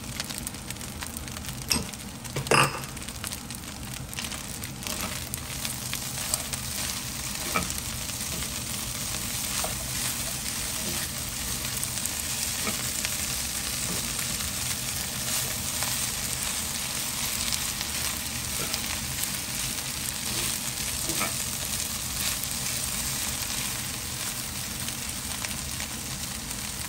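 Fried rice with bok choy sizzling steadily in a hot nonstick wok as it is stirred and tossed with a spatula. A few sharp knocks of the spatula on the pan come in the first seconds, the loudest about two and a half seconds in.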